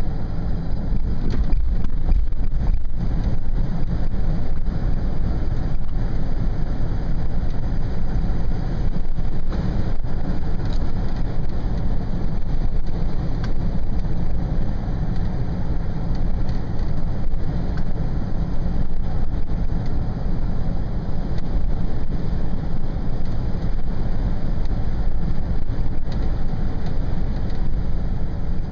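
Steady low rumble of a car driving slowly downhill, road and wind noise heard from inside the cabin.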